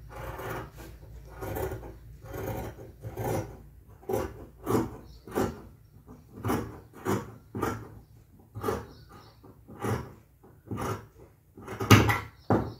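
Large steel tailor's shears cutting through fabric in a steady run of snips, about one every two-thirds of a second, with the loudest strokes near the end.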